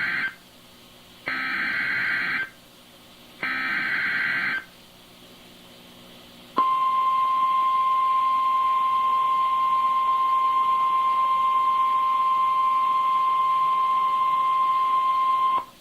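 Emergency Alert System SAME header data bursts over NOAA Weather Radio: the tail of one harsh, buzzy digital burst, then two more about a second long each, a second apart. About two seconds later the steady single-pitch 1050 Hz weather radio alert tone sounds for about nine seconds and cuts off, announcing the next alert.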